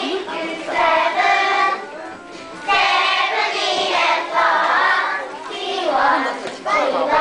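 A group of young children singing an English song together along with a karaoke program, in several phrases with short pauses between them.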